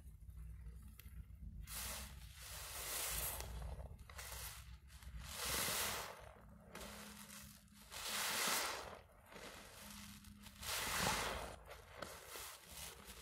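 A soapy foam sponge soaked with lather, squeezed hard in a gloved hand: four wet, hissing squelches about every two to three seconds, with quieter sounds of the suds between squeezes.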